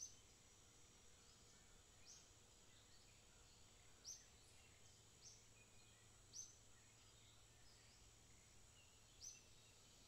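Near silence: room tone with a faint steady hum, broken by about six short, faint, high chirps spaced one to three seconds apart, like a bird calling in the background.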